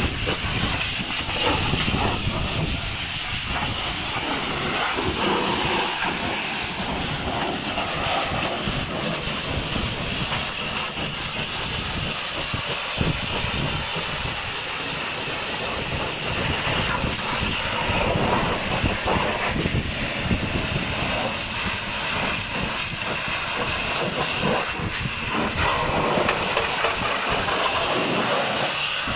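High-pressure washer jet spraying steadily, a constant hiss as the water blasts mud off a truck's metal landing-gear leg and fuel tank.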